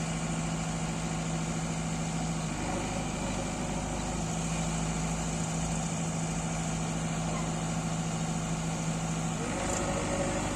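JCB 3DX backhoe loader's diesel engine running steadily, with a low steady hum that drops out about two and a half seconds in and comes back about four seconds in.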